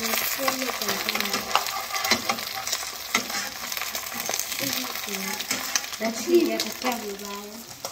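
Eggs frying in a frying pan, sizzling steadily with scattered small clicks.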